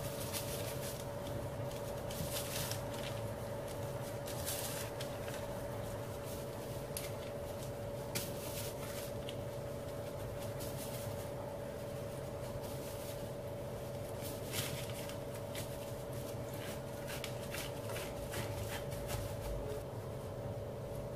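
Gloved hands folding and pressing soft pastry dough over a diced-apple filling: scattered light rustles and soft taps over a steady background hum.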